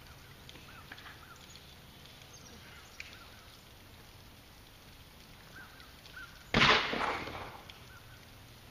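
A heavy rock thrown down onto stony ground lands with one loud crash about two-thirds of the way through, the clatter dying away over about a second.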